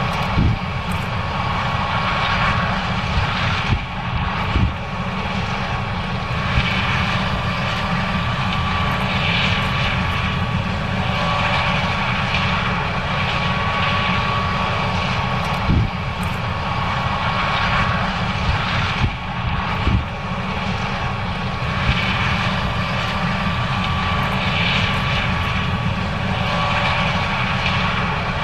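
John Deere S790 combine running under load while harvesting corn: a steady heavy drone with a constant whine over it and a few short knocks.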